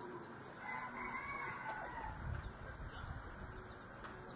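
A bird calling once: one long call of about a second and a half, starting about half a second in, over a faint low rumble.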